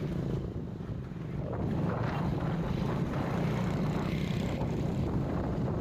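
Steady running noise of a vehicle driving along a highway, with wind buffeting the microphone.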